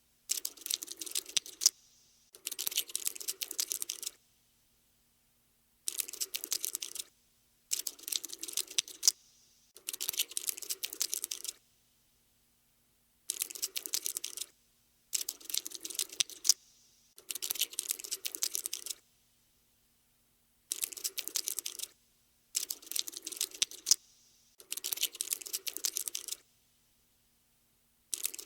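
Cockroach scuttling sound effect: dense, rapid clicking like tiny legs tapping. It comes in bursts of one to two seconds, about a dozen of them, with short silent gaps between.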